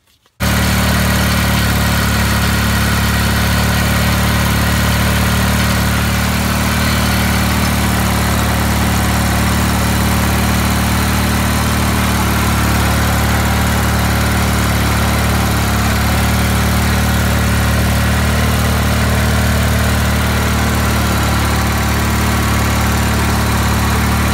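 Deutz-Allis 1920 garden tractor's air-cooled engine idling steadily, running on its newly fitted fuel pump.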